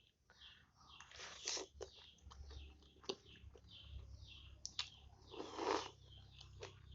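Close-up eating of chicken noodles: chewing and slurping, with scattered sharp clicks. Two louder rushes of noise come about a second and a half in and again a little before the end.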